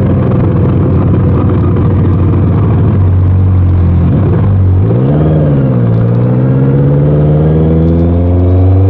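Honda CBR650R's inline-four engine running through an Orion aftermarket exhaust under way. It holds steady revs, gives a quick rise and fall in revs about five seconds in, then climbs smoothly in revs as the bike accelerates through a gear.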